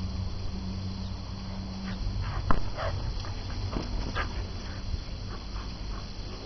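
A dog makes short vocal sounds while it plays rough with a towel, shaking and nosing it. A sharp knock comes about two and a half seconds in.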